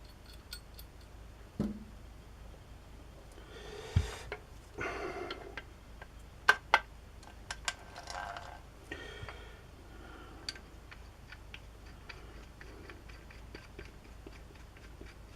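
Metal parts of a hand drill being fitted together during reassembly: scattered small clicks and ticks, a louder knock about four seconds in, two sharp clicks a couple of seconds later, and a few short bursts of scraping.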